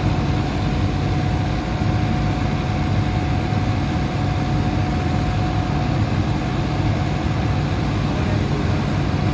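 Hitachi Zaxis excavator's diesel engine running steadily: a low, even drone with a thin steady tone above it.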